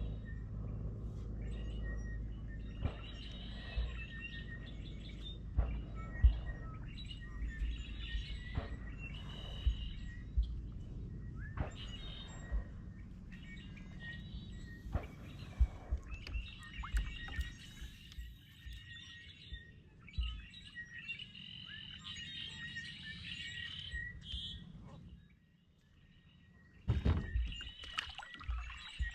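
Small birds chirping and singing on and off throughout, over a low rumble that fades out in the second half. Scattered sharp knocks and clicks cut in, with a cluster near the end.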